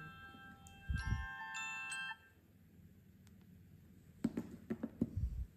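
A smartphone alarm playing a chiming, glockenspiel-like melody that stops abruptly about two seconds in. Near the end, several knocks and taps of phones being handled.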